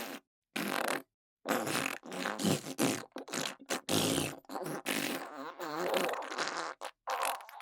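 A rapid string of fart sound effects, pbbbt raspberries blown with the lips. Two short blasts come in the first second, then many follow almost without a break, some with a wavering pitch, and a last one comes near the end.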